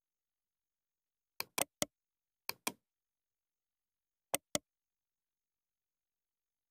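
Computer mouse clicking: seven short, sharp clicks in three quick groups, first three, then two, then two close together like double-clicks.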